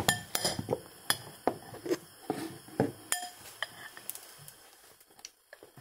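Metal fork mashing banana in a glass bowl, with irregular clinks and taps of the fork against the glass. The taps thin out near the end.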